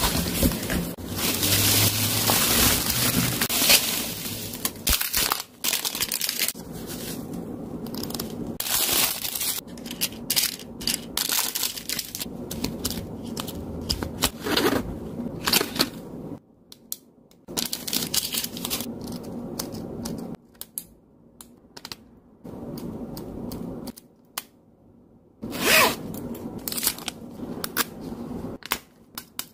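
Cardboard box and plastic-wrapped ink eraser pen packets being handled and unpacked: irregular rustling and crinkling with sharp clicks and taps, broken by a few short quieter stretches.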